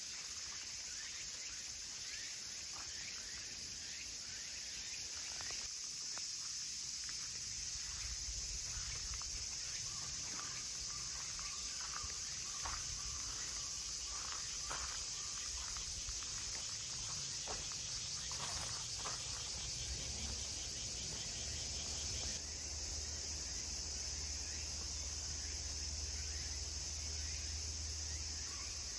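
Steady high-pitched insect chorus in a forest, with scattered soft clicks and a low rumble underneath.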